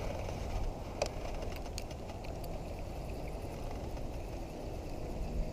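Wind rumbling steadily on the microphone, with a few faint clicks about a second or two in.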